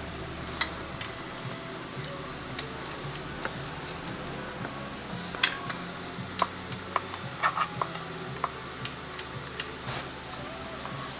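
Irregular light metallic clicks and clinks of tools and parts being handled, bunched more closely in the second half, over faint steady background music.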